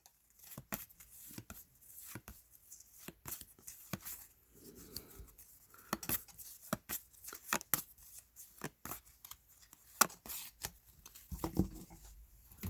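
Trading cards being handled and flipped through by hand: an irregular run of faint clicks and short slides as card edges knock and rub against each other.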